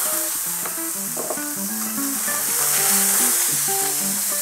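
Beef burger patties sizzling steadily in a hot pan of clarified butter, with background music playing underneath.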